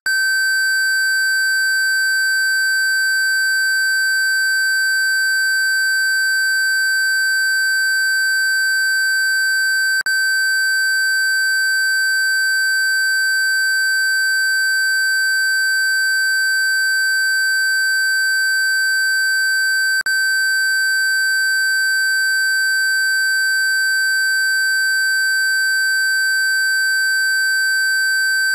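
Steady, unwavering 1550 Hz pure sine tone, electronically generated, with two faint clicks ten seconds apart.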